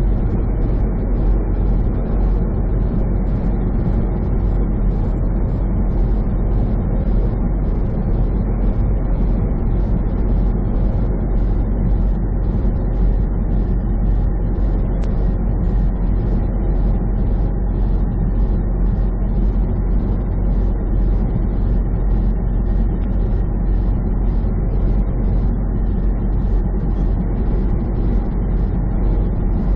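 Semi truck cruising at highway speed, heard from inside the cab: a steady low drone of engine and road noise that doesn't change.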